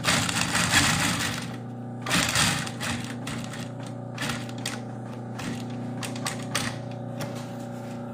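Industrial post-bed sewing machine stitching a suede sneaker upper in short runs, its needle ticking rapidly over the steady hum of the motor.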